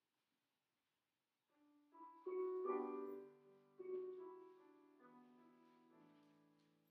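Piano playing a slow introduction of sustained chords, each struck and left to fade, starting about a second and a half in: the lead-in to the sung responsorial psalm.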